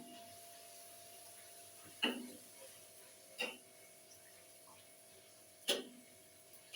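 Four sharp metal taps, spaced one to two seconds apart, as a utensil knocks against a kadai while luchi are deep-fried. A faint steady hum and hiss lie underneath.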